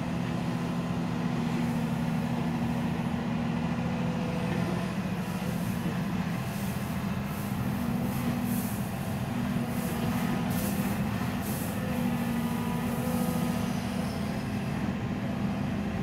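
Komatsu PC228US-11 excavator's diesel engine running steadily under working load while the arm and bucket move, with a few short hisses in the middle stretch.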